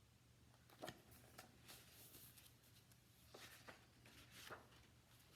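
Faint paper rustling and soft clicks, a few short handling sounds: a page of a picture book being turned and the book handled.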